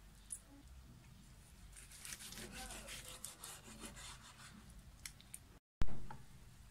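Kitchen knife sawing through raw beef on a cutting board: a run of quick rasping strokes in the middle, then a single loud knock near the end.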